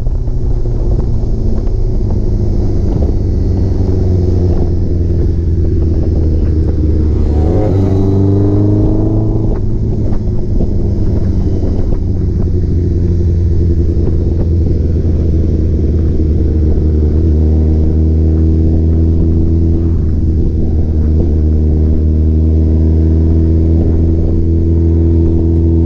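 Honda CBX 750 cafe racer's engine running under way, with wind rush. About eight seconds in, the revs climb sharply and fall back, and they rise gradually again near the end.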